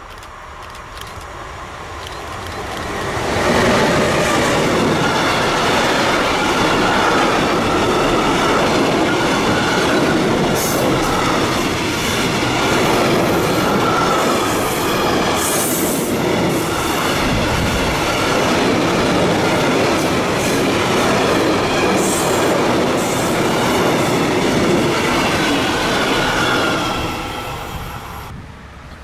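Locomotive-hauled container freight train passing close by. It arrives loudly about three seconds in, then a long steady run of wagons rattles and clatters over the rails with a high ringing tone and a few brief sharp high sounds. It fades near the end as the last wagons pass.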